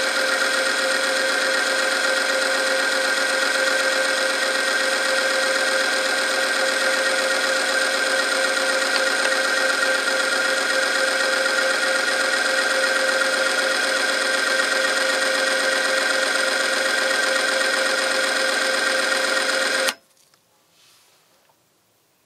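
Oil friction-test machine running under lever-arm load: its electric motor spins a steel ring against a test sample lubricated with 10W-40 engine oil heated to 100°C, making a loud steady whine with several held tones. About 20 seconds in the machine stops and the sound cuts off abruptly.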